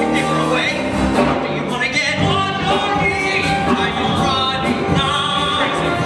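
Live musical theatre singing with musical accompaniment, the voices wavering in pitch and holding notes.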